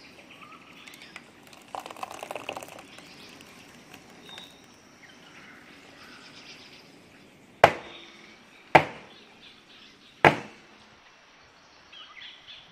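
Three sharp knocks, about a second and a half apart, each ringing briefly: an oval aluminium baking pan knocked down on the worktop. Birds chirp faintly in the background.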